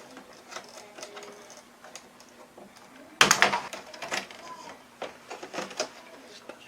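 Scattered clicks and knocks of parts and tools being handled, with a louder burst of clattering about three seconds in.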